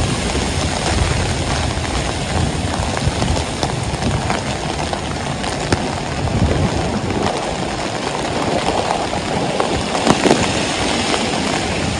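Heavy rain pouring on a city street, a steady hiss with the low rumble of passing traffic underneath and a few sharp taps of drops.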